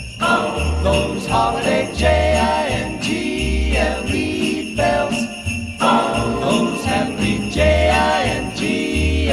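Instrumental Christmas music with jingle bells ringing over a melody and a bass line that changes note about once a second.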